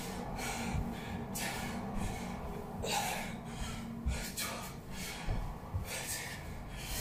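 A man breathing hard and noisily from the effort of side lunges, with a quick breath every second or so, and dull thuds of his feet on the carpeted floor.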